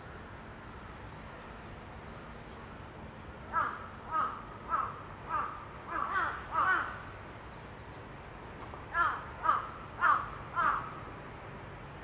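Crow cawing: a run of about seven harsh caws at an even pace, then after a pause of a couple of seconds four more.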